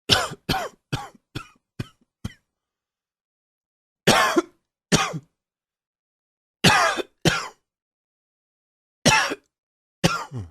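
A man coughing from allergies: a fit of six quick coughs, each weaker than the last, then single and paired coughs every couple of seconds.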